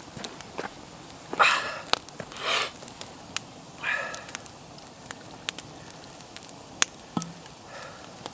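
Wood campfire crackling with scattered sharp pops, and three short rustling crunches in the first half as a person steps in snow and sits down.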